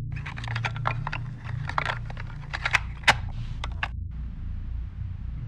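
Quick irregular clicks of typing on a keyboard over a low, steady ambient drone. The typing stops about four seconds in, leaving a steady hiss with the drone.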